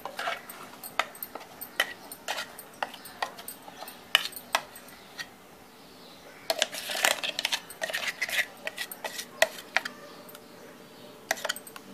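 Clinks, taps and scrapes of a spoon against a stainless steel mixer-grinder jar as the coarsely ground chana dal paste is scraped out into a ceramic bowl. The knocks come irregularly, with a busier run a little past the middle.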